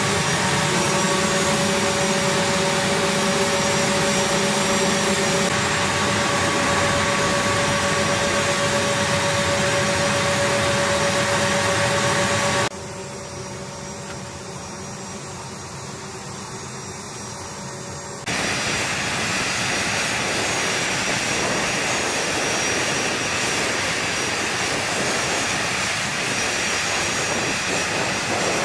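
A-10C Thunderbolt II's TF34 turbofan engines running at ground idle: a steady roar with a high, even whine over it. The sound drops to a quieter level about 13 s in and comes back louder about 18 s in.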